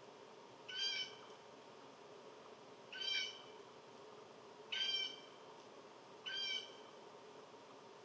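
Four short, high-pitched animal calls, each under half a second, spaced about two seconds apart.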